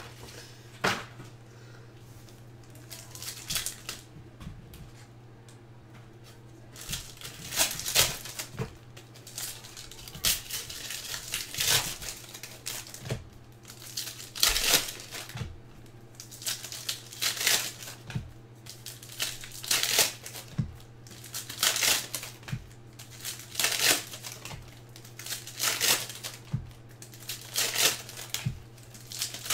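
Foil trading-card pack wrappers (Optic basketball packs) crinkling and tearing as they are ripped open. Short crackly bursts, few at first, then every two seconds or so from about seven seconds in, over a steady low hum.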